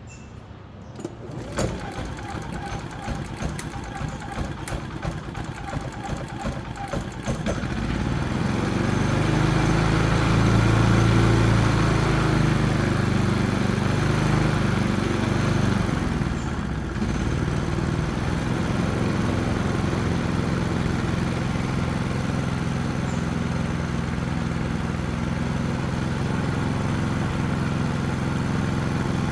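Predator 3500 generator's single-cylinder engine starting about a second and a half in, running unevenly for several seconds, then running steadily and louder from about seven seconds in. It is being run on choke, because its carburettor keeps it going only with the choke on.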